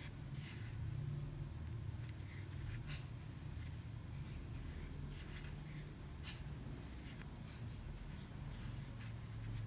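Faint scratching and rustling of milk cotton yarn drawn through stitches by a metal crochet hook, over a low steady hum.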